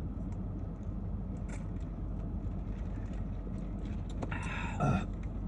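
Steady low rumble inside a parked car's cabin. About four seconds in comes a short raspy noise, then a brief vocal sound.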